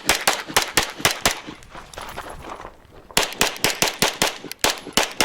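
Glock 17 Gen5 MOS 9mm pistol fired in rapid strings of shots at a competition stage: a fast string, a pause of about a second and a half, then another fast string.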